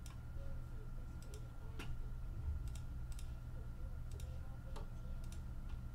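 Scattered light clicks, about eight at irregular intervals, over a steady low hum.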